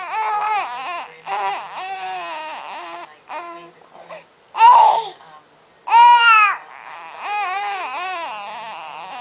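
A baby vocalizing in a run of high-pitched cries and babbling sounds, each rising and falling in pitch. It gives two loud squeals, about four and a half and six seconds in.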